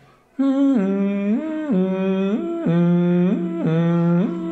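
A man humming with closed lips as a voice pitch exercise, swinging back and forth between a higher and a lower note about once a second, with a quick slide at each change.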